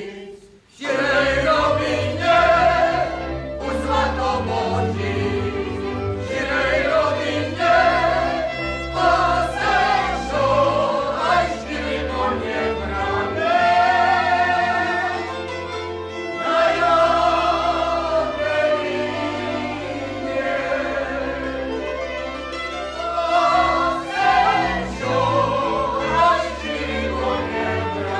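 Men and women singing a Moravian folk dance song together over a low bass accompaniment, starting again after a brief break about half a second in.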